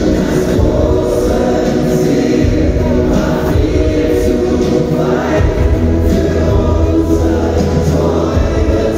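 Live Schlager pop song: several male singers singing together into microphones over the band's backing.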